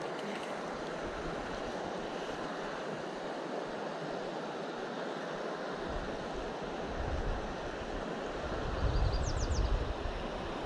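Steady rush of flowing river water, with wind buffeting the microphone as a low rumble from about halfway through, strongest near the end.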